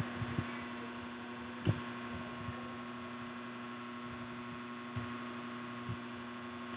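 Steady electrical hum, with a few soft low thumps scattered through it.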